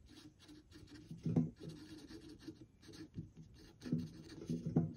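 Felt-tip marker writing on paper in a run of short scratchy strokes as words are written out. A few strokes are louder than the rest: one about a second and a half in and two near the end.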